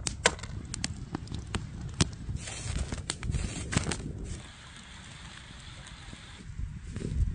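A run of sharp cracks as walnut shells are smashed with a cleaver on a wooden board, then quick rustling cuts of a knife through a bunch of fresh parsley. After that comes a soft steady hiss, and low thuds near the end.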